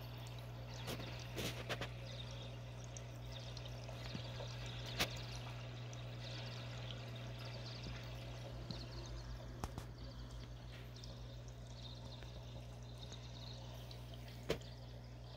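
Aquarium filter running: a steady low hum with water trickling, and a few faint clicks.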